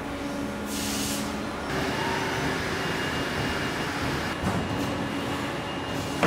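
Sheet-metal factory machinery running: a steady mechanical hum and noise, with a short burst of hissing about a second in.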